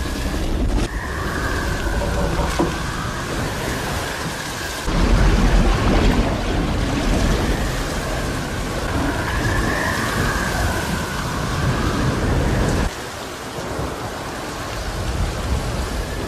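Film soundtrack of a storm at sea: steady heavy rain and rolling thunder. A deep rumble swells about five seconds in, then drops away suddenly late on.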